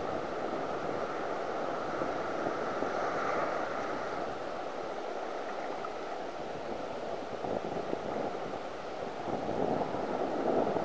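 Breaking surf: a steady rush of foaming waves washing through the shallows, swelling a little louder near the end.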